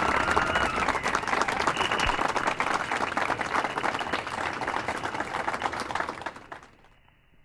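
Short-course RC truck on paddle tyres spinning its wheels while bogged in soft sand, throwing a dense spray of sand that patters and crackles loudly. A motor whine rises and falls near the start, and the noise cuts off sharply about six and a half seconds in.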